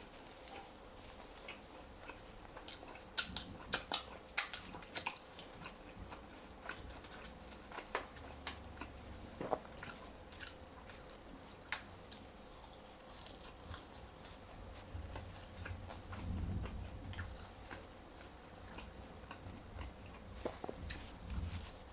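Close-up eating of flavored French fries: bites and chewing with crisp clicks, thickest about three to five seconds in, and softer wet chewing later.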